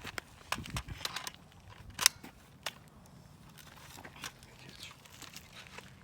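Scattered sharp clicks and clacks from an Umarex Legends MP40 CO2 BB submachine gun that is jamming, with the loudest, sharpest click about two seconds in.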